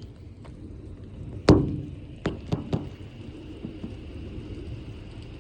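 Steady low rumble of storm wind. About a second and a half in comes one sharp bang with a short low ringing tail, followed about a second later by three lighter knocks in quick succession.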